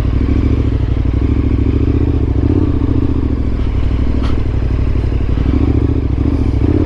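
KTM 1290 Super Adventure's V-twin engine running steadily as the motorcycle rides slowly along a dirt trail, with a single sharp click about four seconds in.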